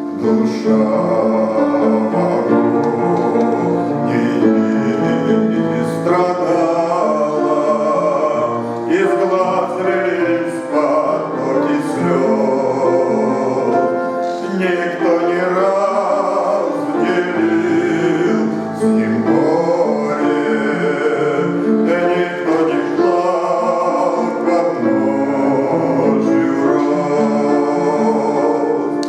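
A man singing a Christian hymn with instrumental accompaniment.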